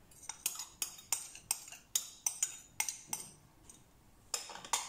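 A small ceramic bowl clinking and tapping in a quick run of about ten sharp clinks, then two more near the end, as chopped sage is knocked out of it into a roasting pan.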